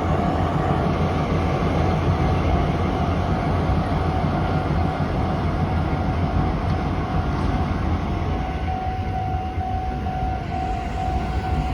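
ND552 diesel locomotive hauling N3000 subway cars past at low speed with a steady low rumble, while the level crossing's alarm rings with a continuous ringing tone.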